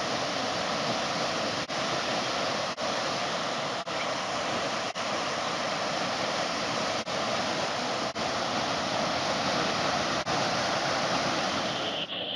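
Steady rushing of a waterfall, with short regular dips about once a second.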